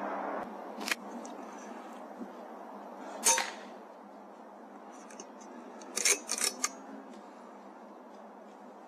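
AGT Uragan 2 PCP air rifle firing on rats over a steady hiss: a sharp click about a second in, the loudest crack about three seconds in, and a quick run of several sharp clicks around six seconds.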